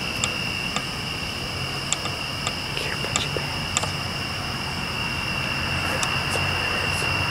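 Night insects, typical of crickets, trilling in one steady high note, over a low distant rumble that swells near the end. A few sharp clicks are scattered through.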